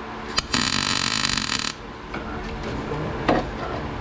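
A short burst of harsh, crackling buzz lasting a little over a second, from a welder laying a tack on rusty steel, then stopping.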